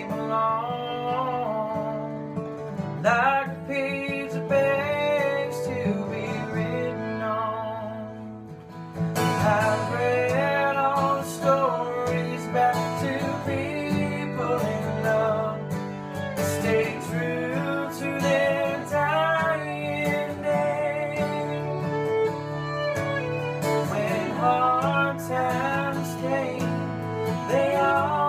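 Country song played live on acoustic guitar and fiddle, with a man and a woman singing; the music gets fuller about nine seconds in.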